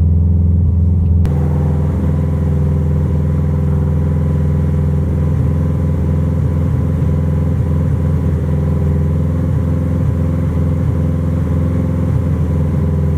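Subaru WRX's turbocharged flat-four engine idling steadily. It is being run to see whether the catalytic converter glows, which the owner suspects is the cause of a weird noise.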